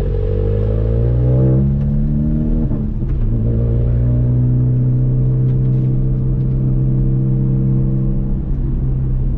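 Stage 2 tuned VW Mk7 GTI's turbocharged 2.0-litre four-cylinder accelerating: the revs rise, fall at an upshift about a second and a half in, rise again, fall at another upshift near three seconds, then hold steady.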